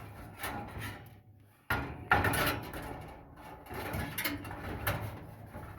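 Irregular knocks, scrapes and light clatter as a replacement Samsung dryer heating element is worked by hand into its sheet-metal heater housing. The loudest knock comes about two seconds in.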